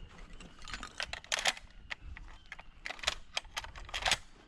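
A string of irregular sharp clicks and short rustles close to the microphone, with a few louder bursts.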